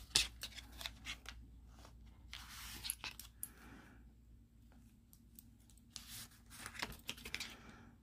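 Nail-stamping tools handled on a metal stamping plate: a few sharp clicks and taps, then two rasping scrapes, most likely a plastic scraper card and a silicone stamper dragged across the plate to take up the polish image.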